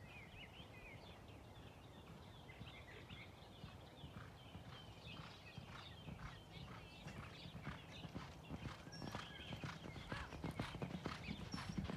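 Hoofbeats of two Thoroughbreds galloping on a dirt training track, growing steadily louder as they approach. Birds chirp in the first few seconds.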